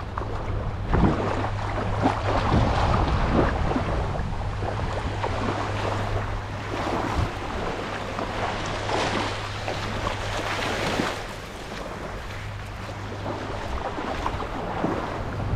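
Shallow water lapping and splashing around a wading angler in small wavelets, with wind on the microphone and a steady low hum underneath.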